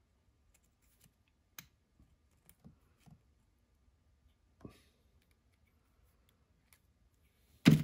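Needle-nose pliers clicking against the thin metal tabs of an old boat horn switch's housing as the tabs are bent back down: a scatter of small, separate clicks, then one much louder knock near the end.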